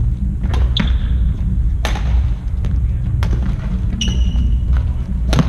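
Irregular hammer blows, about five, roughly a second apart; several leave a short metallic ring. A steady low rumble runs underneath.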